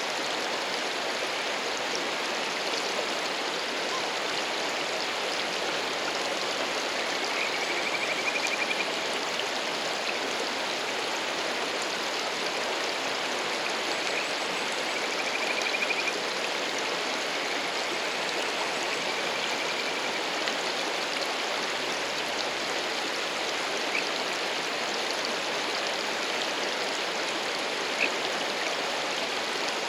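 Mountain stream rushing steadily, with a male kajika frog (Buergeria buergeri) giving short, high trilling courtship calls four times, about a second and a half each. Two sharp ticks come near the end.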